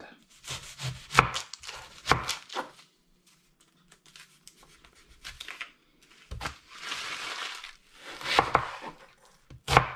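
Chef's knife cutting through an onion onto a wooden chopping board: a few sharp knocks of the blade on the board, then the onion's dry skin being peeled off with a papery crinkle, then more cuts.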